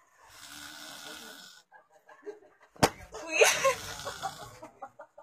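A man passed out drunk, snoring: one long noisy snoring breath lasting about a second and a half. About three seconds in comes a sharp click, then a louder noisy burst, the loudest sound here.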